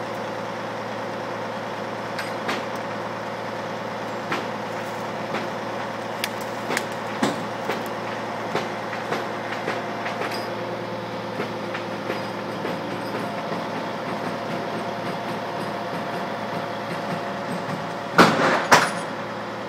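Heavy truck machinery running steadily with a held whine, scattered metallic knocks and clanks, and two loud bangs in quick succession near the end.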